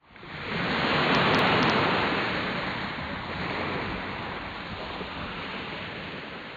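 A rushing noise like sea surf, swelling up over the first second and then slowly fading away.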